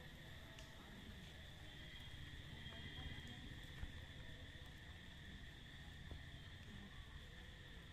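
Faint, steady insect chirring held on two high pitches, over a low rumble, with a few soft clicks, one about four seconds in.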